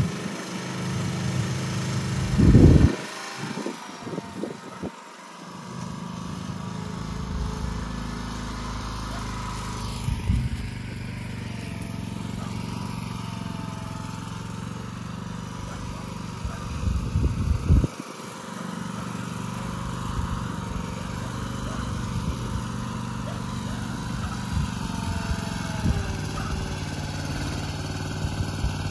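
Small engine of a walk-behind shed mover running steadily as it tows a portable building across grass. Two brief louder bursts break in, a few seconds in and again near the middle.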